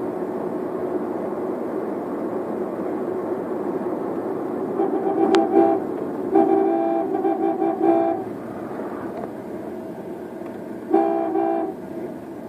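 Steady road and engine noise inside a moving car's cabin, with a vehicle horn honking in runs of short toots about five seconds in and again near the end.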